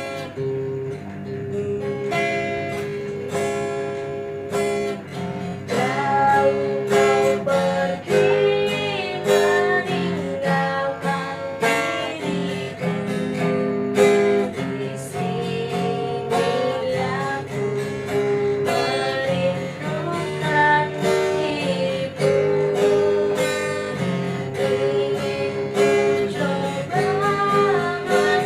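A song played on acoustic guitar, plucked and strummed, with a singing voice coming in a few seconds in.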